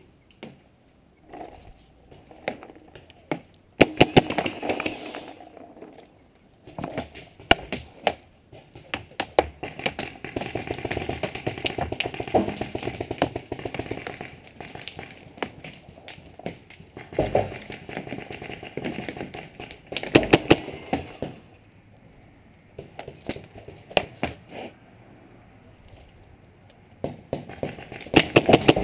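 Paintball markers firing in rapid strings of shots, sharp cracks coming several a second, with a quieter spell of only scattered shots late on before the firing picks up again.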